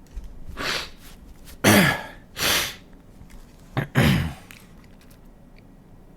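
A man sneezing: a sharp breath in, then a sudden loud sneeze a little under two seconds in, another gasping inhale, and a second sneeze about four seconds in. The sneezes are induced by tickling the inside of the nose with a stiff paper tag.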